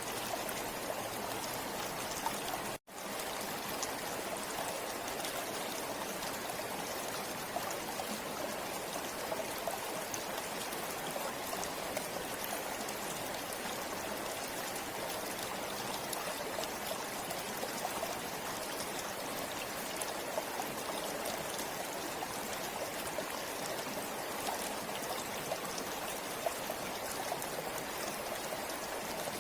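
River water flowing steadily: a constant hiss of running water with many small splashes and drips. It cuts out for an instant about three seconds in.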